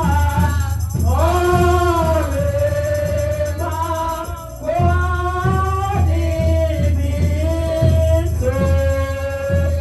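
Gospel worship song with singing in long held notes that slide between pitches, over a heavy bass and a steady beat.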